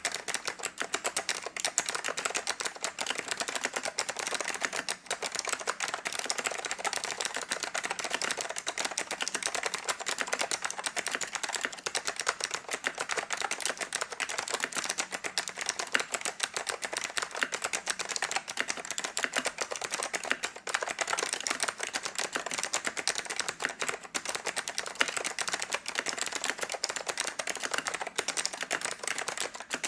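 Fast, continuous typing on a vintage DTK MBK-1013 mechanical keyboard with Alps SKCM White switches: a dense, steady stream of crisp key clicks, with no breaks.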